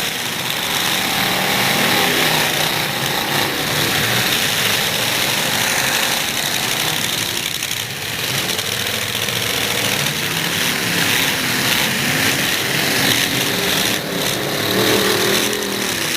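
Several demolition-derby truck engines running and revving unevenly, with a rough, rattling edge and a steady wash of noise over them.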